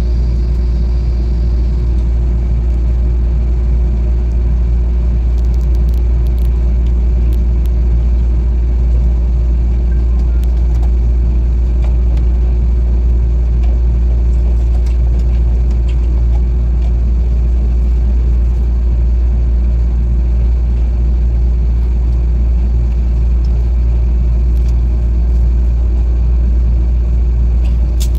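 Steady low rumble of a train in motion, with a constant hum and a few faint ticks over it.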